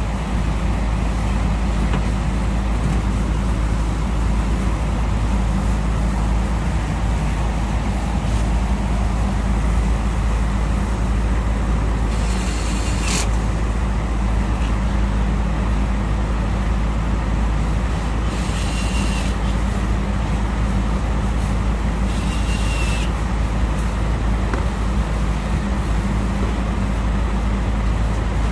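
Sanyo eco-i VRF outdoor condensing units running normally, a steady low drone of compressor and condenser fans after their incoming power supply was restored. Three brief high hisses come in the second half.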